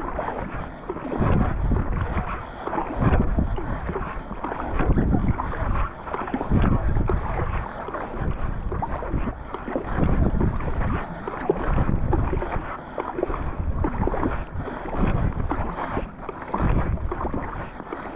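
Kayak paddle strokes pulling through water with splashing, in a steady rhythm that surges every second or so, with wind noise rumbling on the microphone.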